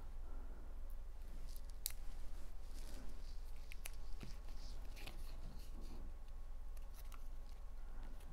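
Paper card pieces and a foam adhesive dot being handled at a table, with scattered small clicks and light rustles over a low steady hum.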